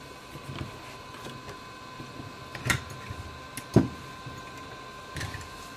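Hot-air soldering station blowing steadily: a faint hiss with a thin steady whine, as it heats a chip to desolder it. Two light clicks near the middle.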